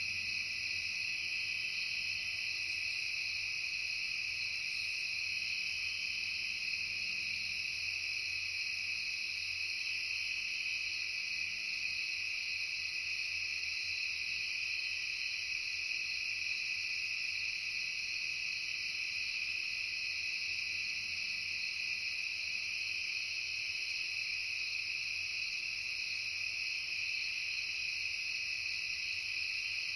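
Steady chorus of crickets and other insects: several unbroken high trills at different pitches layered together, even and unchanging throughout.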